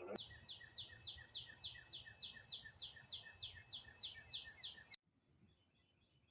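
A bird giving a rapid series of short, high, falling chirps, about three a second. The chirps cut off abruptly about five seconds in, leaving only a few faint chirps.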